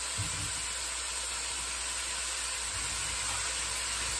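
Sliced bitter melon sizzling in hot oil in a frying pan: a steady frying hiss.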